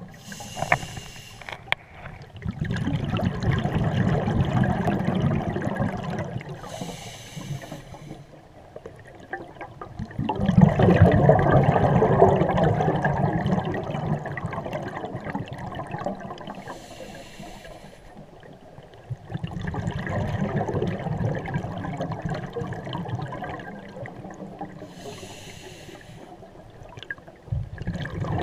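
Scuba diver breathing through a regulator underwater: a short hiss of inhalation, then several seconds of bubbling exhalation, repeating about every eight to nine seconds.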